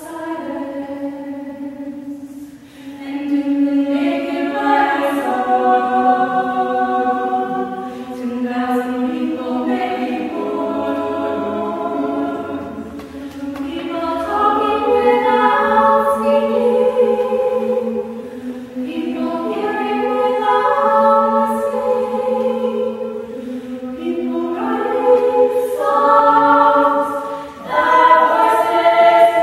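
Choir singing in several voice parts, holding long chords in phrases that swell and briefly fall away between them.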